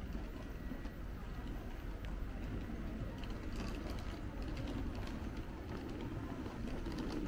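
Urban street ambience: a steady low rumble, with faint scattered ticks and clicks around the middle.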